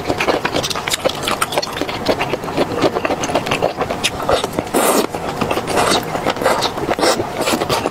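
Close-miked eating of a whole octopus in sauce: wet chewing and mouth clicks in a dense run, with two longer, louder slurps about five and six seconds in.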